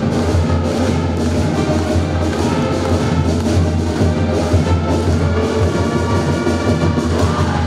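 Band music with brass instruments and drums playing loudly and steadily.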